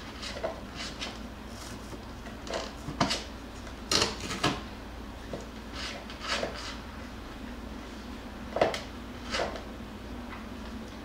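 Jackabee (Beagle × Jack Russell) puppies shifting in a cardboard box, making about ten short scratches and rustles against the cardboard and burlap, spaced irregularly. A faint steady low hum lies under them.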